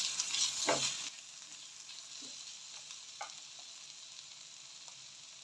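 Onions and garlic paste sizzling as they fry in oil in a pan. The sizzle is loud for about the first second, then drops to a quieter steady sizzle, with a couple of short knocks of the stirring spoon.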